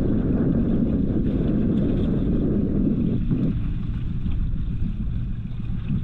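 Wind buffeting the microphone aboard a small fishing boat: a steady low rumble that eases slightly about three and a half seconds in.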